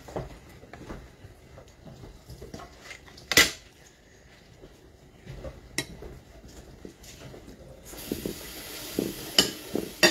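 Cutlery clinking and scraping on plates during a meal, in scattered sharp clinks, the loudest about three and a half seconds in. A steady background hiss comes up about eight seconds in.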